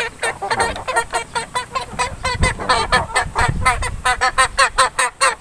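Chicken calling in a fast run of short, loud calls, about four to five a second, growing louder toward the end, with a couple of dull knocks about halfway through.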